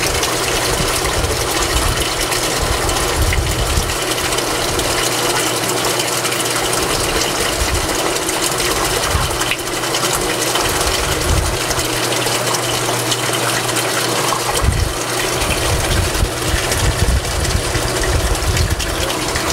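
Portaflush circulation pump running steadily, with water churning in the barrel from the return line and liquid descaler pouring in from a jug.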